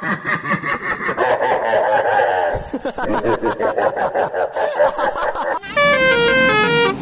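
Busy rhythmic music with voices, then, about two-thirds of the way in, a multi-tone 'telolet' bus horn plays a quick melody of clear notes stepping up and down in pitch.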